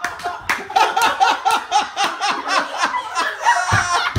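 Hard laughter, a fast run of repeated ha-ha bursts about four or five a second, with a short low thump near the end.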